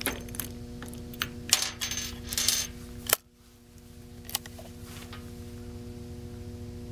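Metallic clicks and clinks from a break-action single-shot H&R/NEF gun with a .357 barrel as it is handled and loaded, with a sharper snap about three seconds in.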